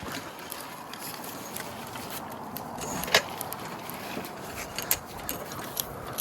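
Metal rigging hardware (carabiners and rope gear) clinking and rattling in scattered small clicks, with one sharper knock about three seconds in, over a steady background noise.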